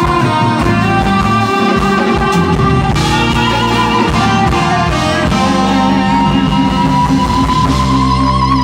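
Jazz-fusion band playing live with electric bass, electric guitar, keyboards and drums. A held lead tone that bends up and down in pitch rides over the full band, and the low end settles into a steady, even pattern near the end.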